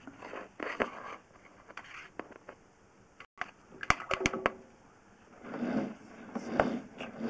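Handling noise of a drain inspection camera's push rod being drawn back: scraping and rustling, with a quick run of sharp clicks about four seconds in.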